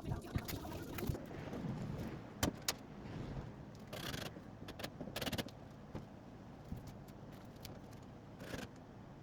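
Scattered clinks, knocks and a couple of short scrapes of hardware and tools being handled, over a low steady hum.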